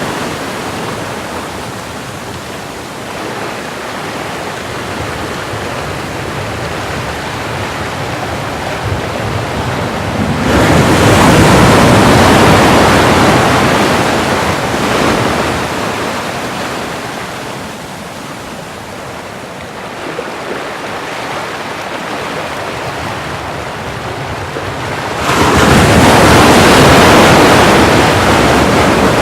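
Ocean surf: waves breaking and washing in, a steady hiss of water with two big waves crashing in suddenly, about ten seconds in and again near the end, each fading slowly as the wash draws back.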